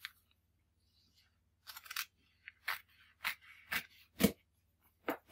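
Scissors snipping through the edge of a printed t-shirt cutout, about six short cuts roughly every half second, starting a little under two seconds in.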